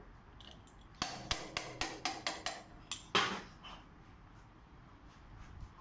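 Pipe wrench clinking against a steel truck wheel hub mounted on a lathe: a quick run of about eight metallic taps, then one louder clank a little after three seconds in.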